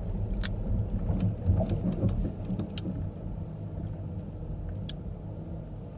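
Car cabin noise while driving: a steady low rumble of engine and road, with a few sharp, scattered clicks.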